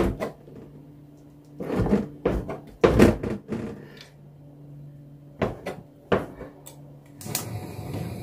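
Kitchen knife slicing fried fish cake on a plastic cutting board: a handful of irregular knocks of the blade against the board.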